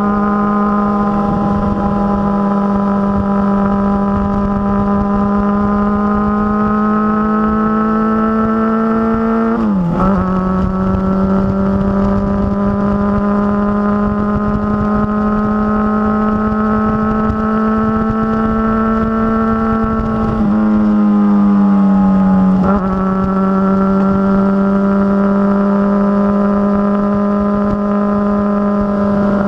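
Motorcycle engine running under way at a steady loud note that creeps slowly up in pitch, dropping abruptly about ten seconds in and again after about twenty seconds, as at gear changes.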